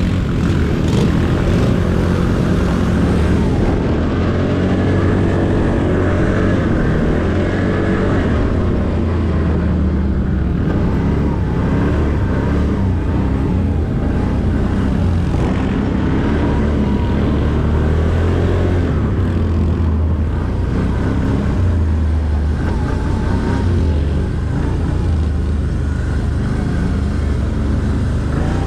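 ATV engine running steadily under way, its pitch wavering up and down with the throttle.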